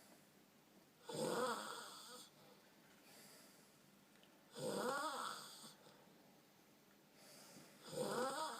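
Snoring: three rough, drawn-out snores about three and a half seconds apart, with quiet breathing in between.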